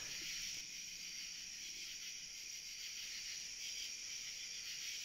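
Faint, steady, high-pitched chorus of night-singing insects, crickets and katydids.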